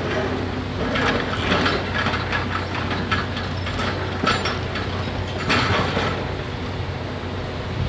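Hitachi 670 LCH excavator's diesel engine running steadily, with bursts of crunching and cracking from building material being broken and dragged in demolition, the loudest about a second in, around four seconds in and about five and a half seconds in.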